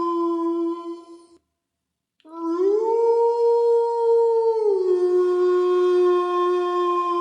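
Wolf howling: a long, even howl fades out about a second in, and after a short pause a new howl starts, rises in pitch, holds, then drops back and carries on steadily.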